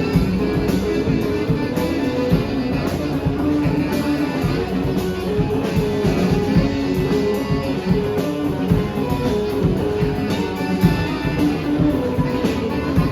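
Live band playing an instrumental passage led by guitar, with drums keeping a steady beat.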